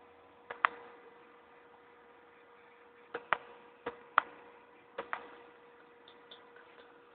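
A steady electrical hum with a scattering of sharp clicks, several in quick pairs, coming in three clusters: about half a second in, around three to four seconds, and near five seconds.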